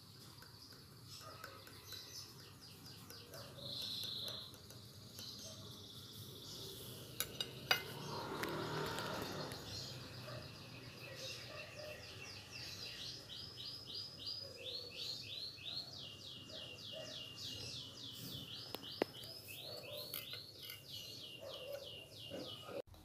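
Birds chirping in rapid runs of short falling notes, several a second, through the second half. Underneath are a few sharp clinks of a utensil against a ceramic plate, loudest about seven and a half seconds in.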